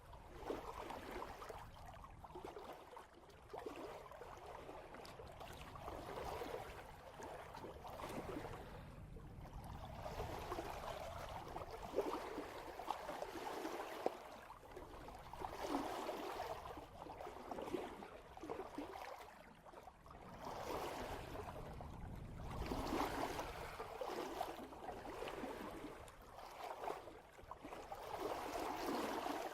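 Water rushing and sloshing along the hull of a sailboat under way, swelling and easing every few seconds as the boat moves through the swells, over a low rumble.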